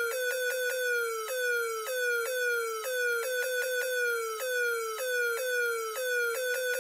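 Electronic siren effect: a clean tone that slides slightly down in pitch and snaps back up about twice a second, broken now and then by runs of quick short repeats.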